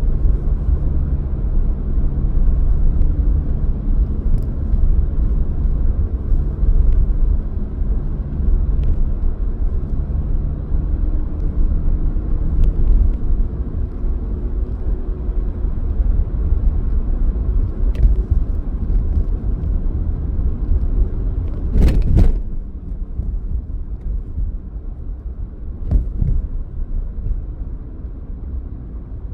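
Car driving along: steady engine hum and road rumble. A sharp double knock comes about three quarters of the way in, after which the rumble settles lower, with a lighter knock a few seconds later.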